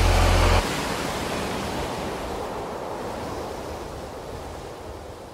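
The last held low note of the music cuts off about half a second in, leaving ocean surf on a rocky shore that slowly fades out.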